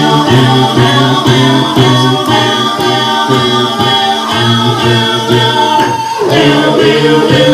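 A cappella vocal group singing a rock song live, with no instruments: a woman's lead voice over the other singers' rhythmic sung bass line.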